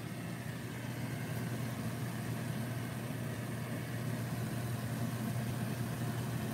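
A steady low hum with a faint, even hiss over it, heard while a pan of eggs and tomatoes fries on an electric stove.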